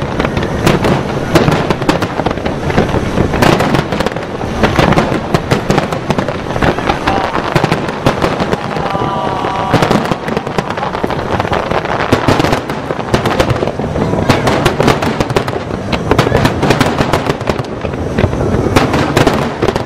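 Large aerial fireworks display: a dense, unbroken barrage of shells bursting and crackling, many bangs a second.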